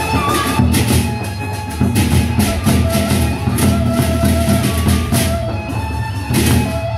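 Lombok Sasak gendang beleq gamelan playing: large barrel drums beaten with sticks drive a fast, dense rhythm under steadily ringing hand-held knobbed gongs and frequent crashing metal strokes.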